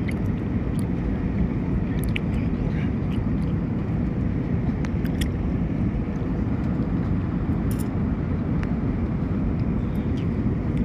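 Airliner cabin noise during the approach: a steady low rumble of engines and airflow with a faint steady hum, and a few light clicks and rattles.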